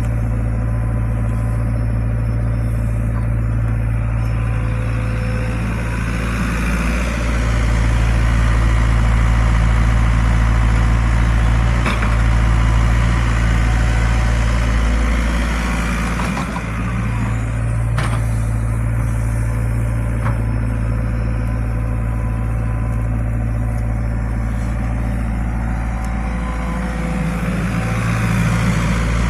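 Excavator's diesel engine running steadily, growing louder and working harder for several seconds in the middle, with a couple of sharp knocks.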